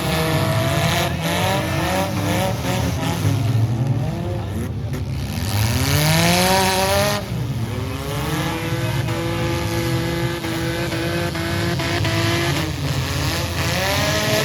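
Several demolition derby cars' engines revving hard at once, their pitch repeatedly climbing and falling as they accelerate and reverse, with a few sharp knocks.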